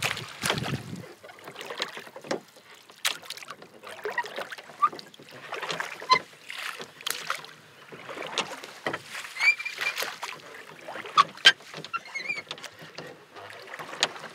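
A small boat moving on a lake, with irregular splashes of water and knocks against the hull. There is no engine, and birds chirp now and then.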